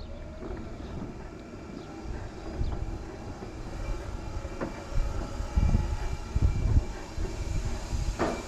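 Power wheelchair driving over concrete: a steady rolling noise from its drive motors and tyres, with a faint whine and a few light clicks, and heavier low rumbles about five to seven seconds in.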